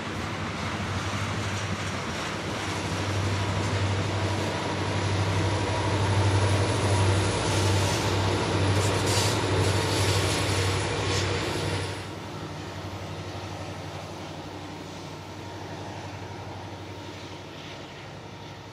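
Diesel-hauled train passing: a steady low engine drone with wheel and rail noise, building to its loudest about halfway, then dropping off sharply about two-thirds through and fading.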